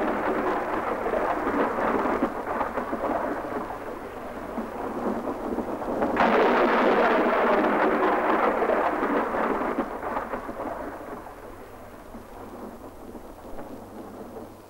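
Heavy rain pouring down as a dense, steady rushing hiss, with a sudden louder surge about six seconds in that slowly dies away toward the end.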